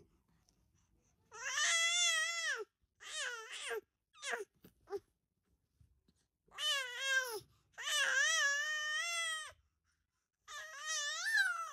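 A five-month-old baby boy squealing in a string of high-pitched calls that rise and fall in pitch, some short and some drawn out, with brief pauses between. This is playful vocal play, not crying.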